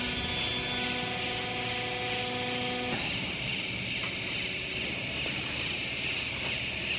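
Vertical hydraulic baler's pump motor running with a steady hum that cuts off abruptly about three seconds in, leaving a steady hiss.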